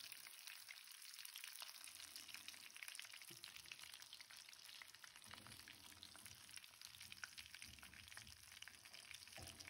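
Batter-coated prawns frying in hot oil in a metal wok: a faint, steady sizzle of fine crackles.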